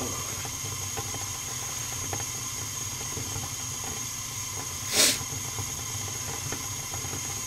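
Natural-gas furnace burners running: a steady rushing hiss of the flames over a low hum, with one short whoosh about five seconds in.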